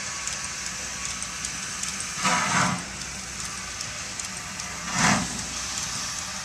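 Strasburg Rail Road No. 90, a Baldwin 2-10-0 steam locomotive, working slowly under load: two loud exhaust chuffs about two seconds and five seconds in, over a steady low background noise.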